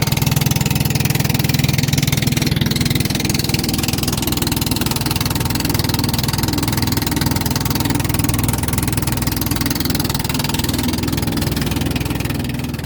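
An engine running steadily at a constant speed, fading out near the end.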